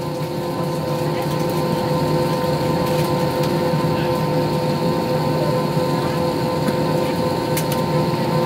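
Airbus A320-214's CFM56 turbofan engines running, heard inside the cabin over the wing: a steady drone with several steady tones in it, growing louder over the first couple of seconds and then holding as the jet rolls along the ground.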